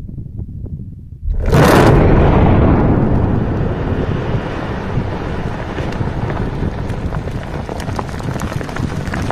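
Open-pit quarry blast: a sudden explosive boom about a second in, followed by a long rumble of blasted rock and debris coming down, with scattered crackles.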